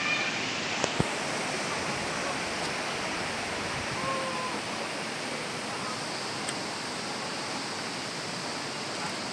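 Steady rushing of a waterfall, an even wash of falling water, with two sharp clicks about a second in.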